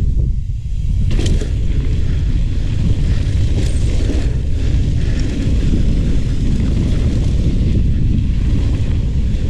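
Wind buffeting an action camera on a mountain bike, with tyres rolling over a dirt jump trail. A brief lull just after the start ends in a sharp knock about a second in as the bike comes down off a jump, with a lighter knock a few seconds later.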